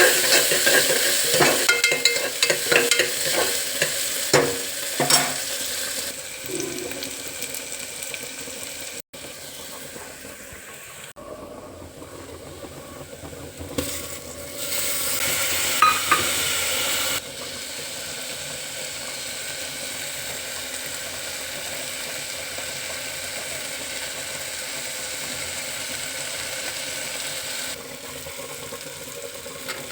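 Food sizzling in a hot pan for khichdi, with a spoon stirring and knocking against the pan in the first few seconds, then a steady sizzle. The sound jumps in level several times.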